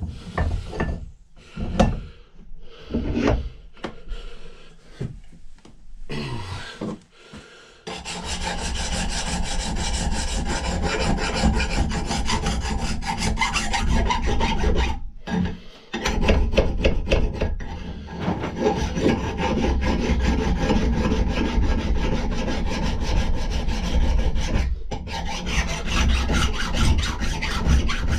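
Old steel axe head being filed to reshape its edge, a steady rasping that starts about eight seconds in and pauses briefly a few times. Before it come a few knocks and handling sounds.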